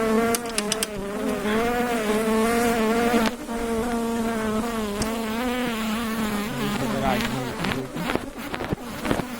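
Honeybees swarming and buzzing close around an open hive, a dense wavering drone that wobbles in pitch. A few clicks and knocks come near the end.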